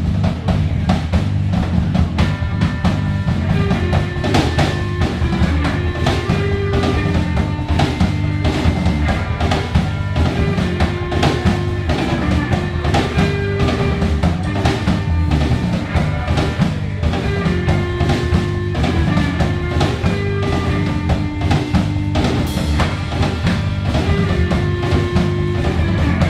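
Live three-piece rock band playing an instrumental passage: a drum kit keeps a steady beat under bass guitar while sustained electric guitar lines repeat a melody, with no vocals.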